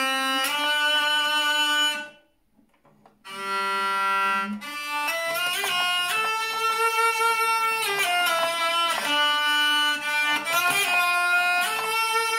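Handmade six-string, 21-key hurdy-gurdy of maple and linden wood being played: the cranked wheel sounds a steady low drone under a melody stepped out on the keys. About two seconds in the sound stops for about a second, then the playing resumes.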